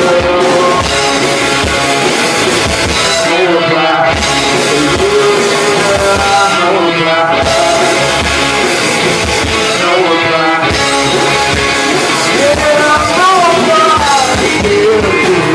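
Rock song with singing over guitar and a steady drum beat.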